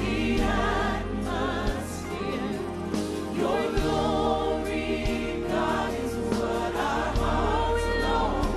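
Live gospel worship music: women singing with wavering, held notes, backed by a group of singers and a band, over sustained low bass notes that change every few seconds.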